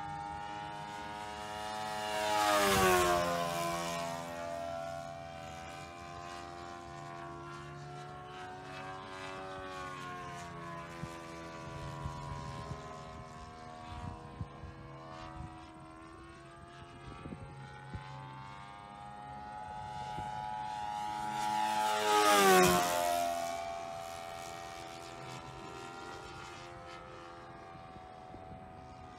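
Sportster 60 radio-controlled model airplane in flight, its engine buzzing steadily overhead. It makes two close passes, about 3 seconds in and about 22 seconds in. On each pass it grows loud, and its pitch drops sharply as it goes by.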